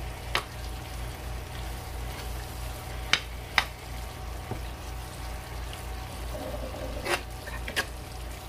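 Chili mixture sizzling in a cast iron skillet while a metal spoon stirs in shredded cheese, with a few sharp clicks of the spoon against the pan, two of them close together about three seconds in.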